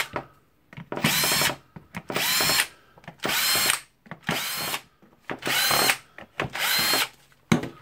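Cordless drill-driver running in about six short bursts, each spinning up with a rising whine, as it backs out housing screws one after another.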